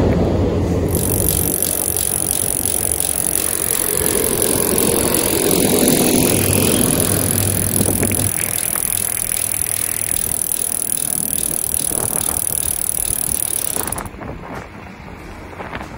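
Trinx M1100 mountain bike being ridden along an asphalt road: a steady rushing noise of tyres and wind on the microphone, which drops off sharply near the end.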